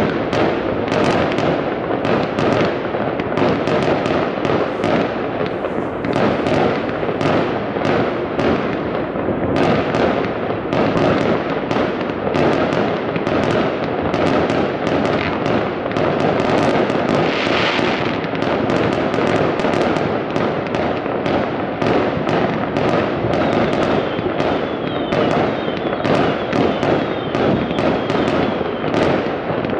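Dense, unbroken barrage of fireworks and firecrackers going off across a city, the bangs overlapping one another without a pause, with a few faint falling whistles near the end.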